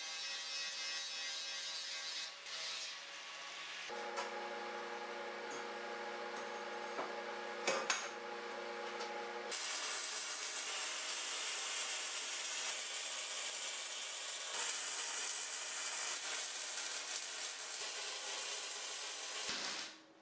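Angle grinder with a flap disc grinding a welded steel frame. It is followed by about five seconds of a steady multi-tone hum, then about ten seconds of electric arc welding hissing and crackling on the steel frame, which stops shortly before the end.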